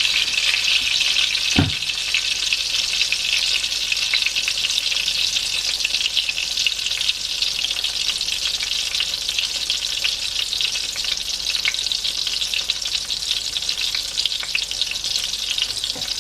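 Eggplant omelette (tortang talong) frying in oil in a pan on medium heat, a steady dense sizzle and crackle as it nears done. A single soft thump about two seconds in.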